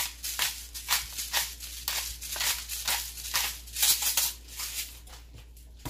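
Hand-twisted spice grinder grinding seasoning, a quick series of gritty crunching clicks about three a second that stops about five seconds in.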